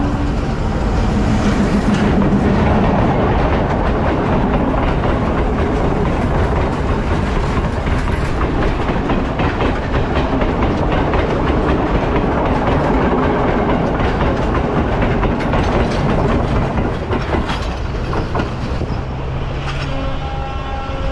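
Passenger train passing close by on the track, its wheels clattering over the rail joints as the carriages go past, then fading as it pulls away. Music comes in near the end.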